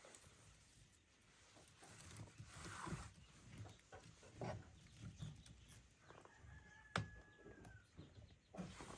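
Near silence: faint outdoor ambience with scattered soft knocks and one sharp click about seven seconds in.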